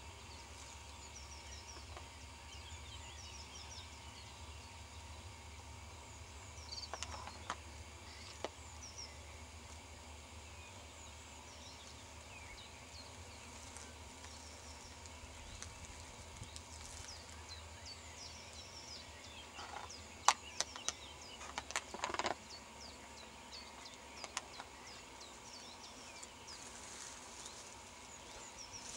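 Small birds singing faintly in quick chirps and trills, over a low steady rumble, with a few sharp clicks about two-thirds of the way through.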